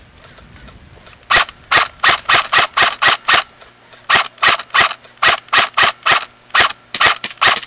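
Airsoft rifle firing a rapid string of single shots, about three a second, close by: eight shots, a short pause, then eleven more.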